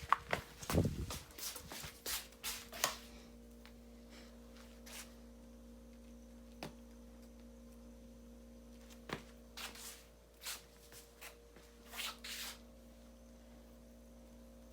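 Hands handling objects: scattered clicks, taps and rustles, busiest in the first few seconds and again near the end, over a faint steady hum.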